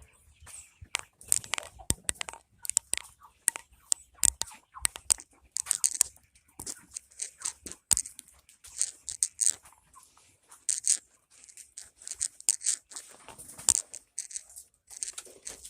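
Game fowl pecking at feed: a rapid, irregular run of sharp pecks and crunches.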